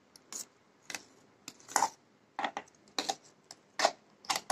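Short metal clinks and scrapes, irregular and about one every half second to a second, as thick mango puree is scraped out of a steel mixer-grinder jar into a glass bowl.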